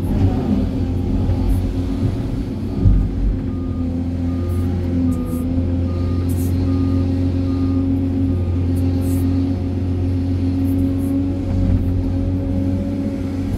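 Hydraulic excavator's diesel engine running steadily under digging load, heard from inside the cab as the bucket works into earth and rock. A faint reversing alarm beeps about twice a second for several seconds in the middle, and there is a low thump a few seconds in.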